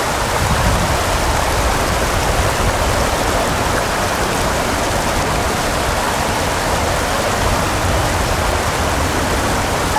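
Steady hiss of rain falling on open water, with a low rumble underneath.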